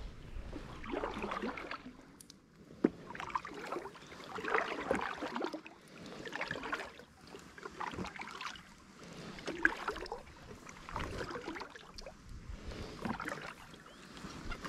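Paddle strokes dipping and splashing in calm river water, a regular rhythm of about one stroke every second and a half.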